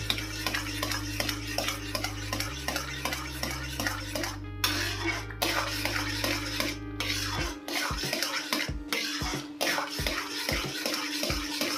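A stirring spoon scraping repeatedly around a kadhai as semolina halwa thickens on high flame, two or three scrapes a second, over background music.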